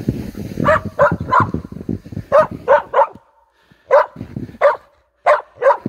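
Dog barking: about ten short, high barks in quick pairs and threes. For the first two seconds they sit over a low rumble of wind on the microphone.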